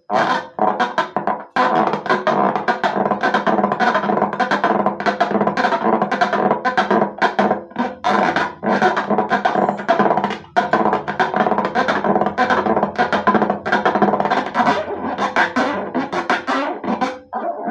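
Background music with a busy percussive beat over sustained tones.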